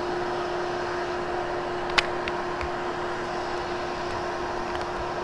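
Hoover HushTone vacuum cleaner running steadily over carpet with an even hum. A sharp click comes about two seconds in, followed by a few fainter ticks.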